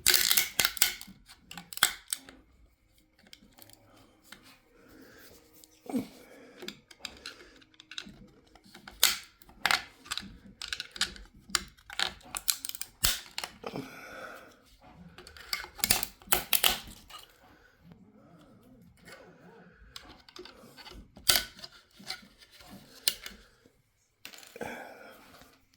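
Support material being snapped and broken off a 3D-printed plastic model by hand: irregular sharp cracks and clicks, some loud snaps among smaller ones.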